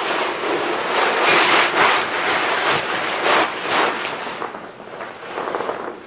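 Rustling and crinkling of an Outdoorsman Lab ultralight inflatable sleeping pad's nylon as a person rolls over on it. The noise comes in uneven swells, loudest while she turns, with fine rapid crackles near the end.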